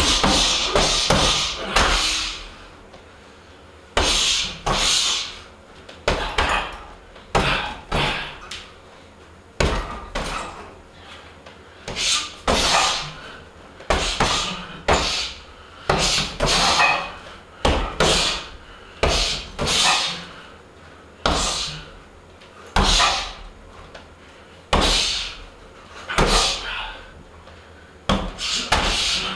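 Strikes landing on a hanging heavy punching bag, thudding in quick combinations of two to four hits with short pauses between them.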